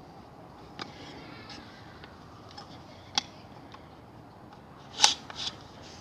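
A few sharp, isolated clicks and knocks as an AR-15 rifle and its parts are handled, the loudest two close together near the end.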